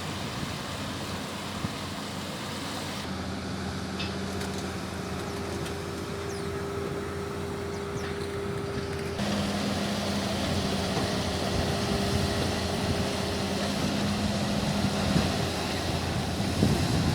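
An engine running steadily, a low hum over a wash of outdoor noise. The hum shifts pitch slightly at two abrupt cuts.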